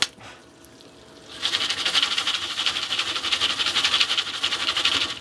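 Jiffy Pop foil pan being shaken on an electric coil burner: a fast, even rattling hiss of kernels and hot oil in the foil, starting about a second and a half in.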